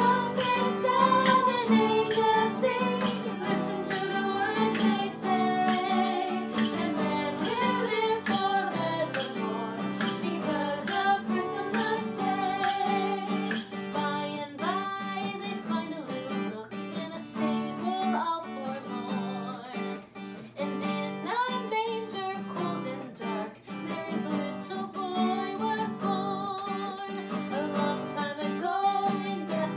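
Women's voices singing a carol in close harmony to strummed acoustic guitar. A shaker keeps a steady beat for the first half and stops about halfway through.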